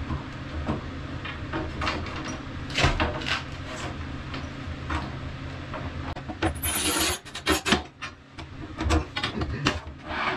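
Manual rail tile cutter working a wall tile: the scoring wheel scrapes across the glazed face in a rasping stroke, loudest about six and a half seconds in, amid clicks and knocks of the handle sliding on its rail.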